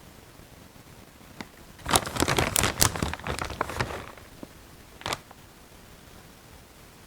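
Packaging being handled and crinkled, a burst of rustling and crackling lasting about two seconds, followed by a single sharp click a second later.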